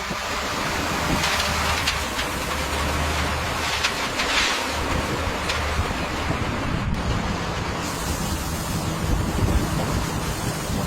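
Steady rumble of construction machinery with a low hum under a wind-like hiss that swells now and then.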